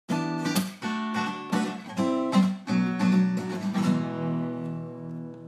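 Intro music: an acoustic guitar strumming a run of chords. The last chord, struck about four seconds in, is left ringing and fades away.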